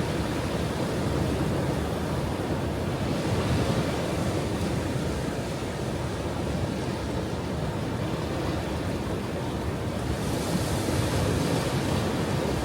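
Ocean waves breaking and washing on a shore, a continuous rush of surf whose hiss swells twice, about three seconds in and again near the end.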